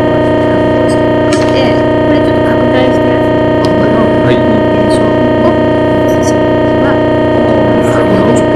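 Loud, steady electrical buzz, a dense stack of constant tones from the audio line, drowning a man's speech that is only faintly heard underneath.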